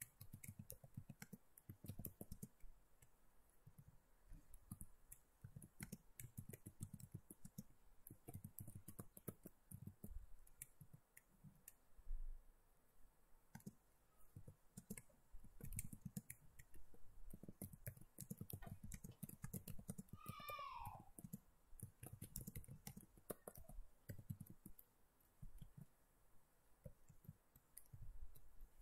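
Faint scattered clicks and soft low knocks picked up by a computer microphone, with one short falling tone about twenty seconds in.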